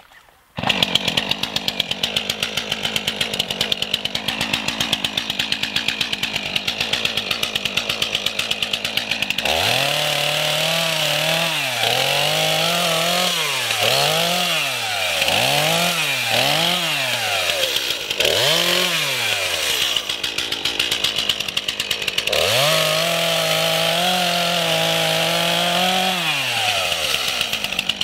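Stihl MS 231 C chainsaw's two-stroke engine starting up and idling, then revved to full throttle and back about five times in quick succession as it cuts small branches. It idles again, then is held at full throttle for about four seconds through a longer cut before dropping back to idle. The chain is freshly sharpened.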